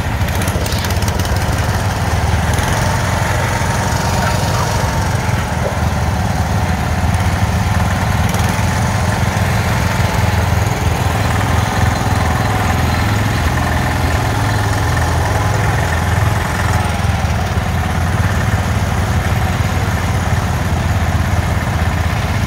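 Small engines of a Sears and a Wheel Horse garden tractor running together, pulling a weight-transfer sled in a double-tree pull. The drone is steady and loud, with no big changes in revs.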